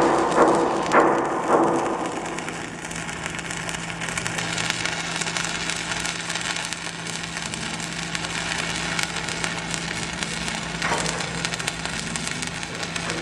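Stick-welding arc from a 6011 electrode (5/32 in) on steel plate, crackling and sizzling continuously. There are sharp pops in the first two seconds, then it settles into a steadier crackle over a steady low hum.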